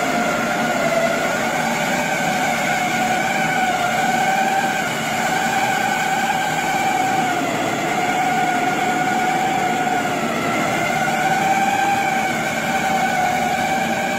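Soybean splitting and hull-separating machine running: a steady whine that drifts slightly up and down in pitch, over an even hiss.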